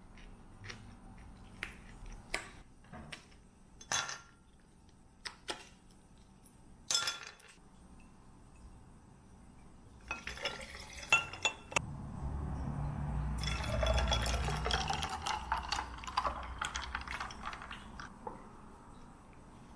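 A few sharp clicks of chopsticks against a plate and bowl. Then ice clinks in a glass and coffee is poured from a mug over it, the pour rising in pitch as the glass fills, with a few small clinks after.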